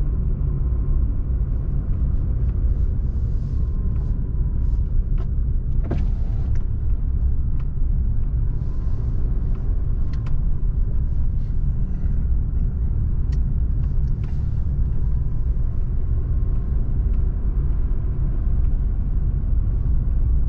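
Car driving, heard from inside the cabin: a steady low rumble of engine and tyres, with a few scattered short clicks and ticks.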